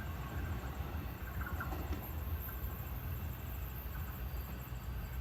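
Cabin running sound of a JR East E653-1100 series express electric train at steady speed: an even low rumble of wheels on rail under a steady hiss.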